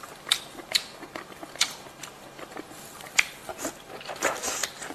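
Close-miked eating: wet mouth smacks and sharp clicks as a person chews and sucks at food, about a dozen irregular smacks.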